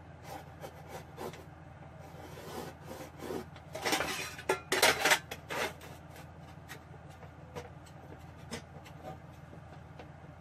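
Pencil scratching marking lines onto a sheet-steel computer case panel, with a metal speed square sliding and scraping across the steel. The short strokes come in bursts, loudest in a cluster about four to five and a half seconds in.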